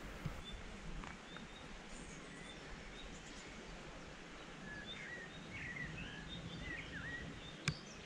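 Quiet outdoor ambience: a steady faint hiss with a few short, high bird chirps, mostly in the second half, and a single sharp click near the end.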